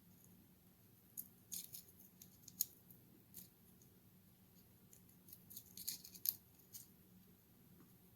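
Faint, scattered clicks and taps of a kitchen knife on a cutting board as a garlic bulb is trimmed. They come in two loose clusters, with the sharpest click in the second.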